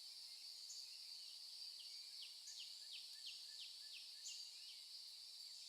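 Faint nature ambience: a steady high insect drone, with a bird giving a run of short, quick falling chirps, about three a second, in the middle.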